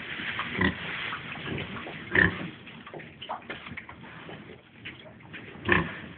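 A sow and her four-day-old piglets grunting while the piglets suckle, with three louder short grunts about half a second in, about two seconds in and near the end, among many smaller sounds.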